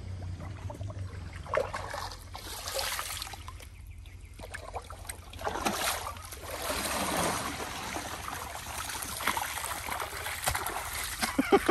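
Lake water splashing and sloshing in several spells as a carp is lowered from a floating sling in the margin and swims away, with a few sharp knocks near the end.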